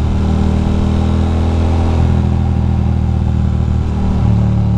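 2006 Ducati Monster 620's air-cooled L-twin engine running steadily at an easy cruise, with wind rush. Its note shifts slightly about two seconds in and again about four seconds in.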